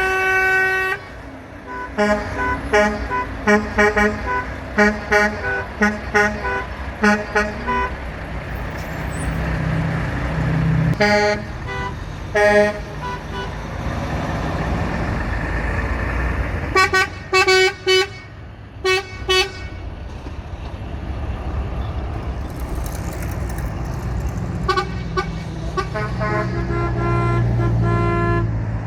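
Semi-truck air horns blasting in repeated short toots, about two a second for several seconds, then a pair of blasts, a cluster of blasts, and longer held blasts near the end. A low rumble of truck engines swells as trucks drive past.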